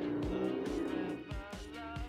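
Background music: a held chord fading out, then a low beat with short plucked notes over it.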